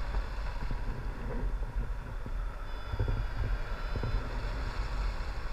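Wind buffeting the camera's microphone in tandem paraglider flight: a steady low rumble with a light hiss above it and a few faint ticks.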